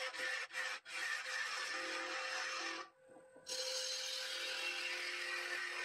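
Bowl gouge cutting the inside of a wooden bowl spinning on a Nova Neptune Max wood lathe: a steady hiss of the cut over the lathe's motor hum, broken by a brief gap about halfway.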